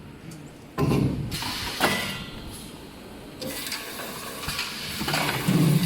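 Toilet paper and kitchen towel roll making machine working: a sudden burst of hissing clatter about a second in, a sharp knock near two seconds, and more hissing bursts later.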